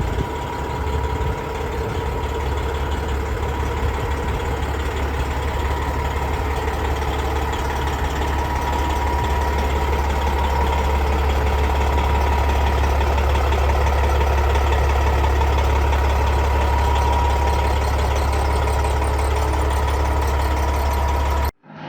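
Detroit Series 60 inline-six diesel in a Peterbilt 389 glider idling steadily: a deep, even rumble with a faint steady whine on top. It cuts off abruptly near the end.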